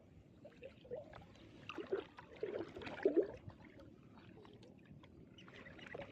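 Water gurgling and splashing in irregular bursts, loudest a couple of seconds in, with small clicks and knocks around it.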